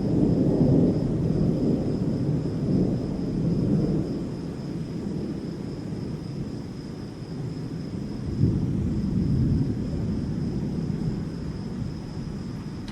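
Rolling thunder rumbling, loudest at the start and slowly dying away, with a fresh swell of rumble about eight seconds in.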